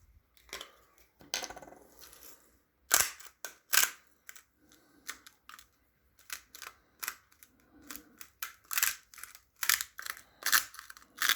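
Salt grinder cranking out smoky pink Himalayan salt: a string of sharp, crunchy clicks, irregular at first and coming faster and closer together near the end.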